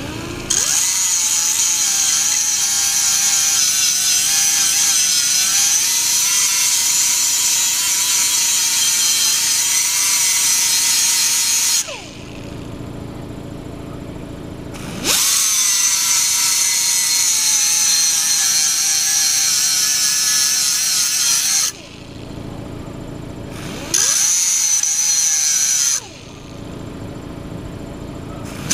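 Small handheld electric grinder with a grinding stone working the dull cutting edge of a steel lawn mower blade to sharpen it. It gives a high motor whine, wavering in pitch, over a grinding hiss. It runs for about twelve seconds and stops, runs again for about seven seconds, runs briefly for about two more, and starts once more at the very end.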